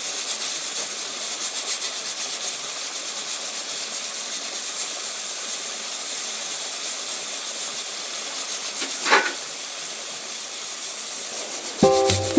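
Potato and spinach sabzi sizzling in hot oil in a pan: a steady crackling hiss, with one brief louder sound about nine seconds in. Background music comes in near the end.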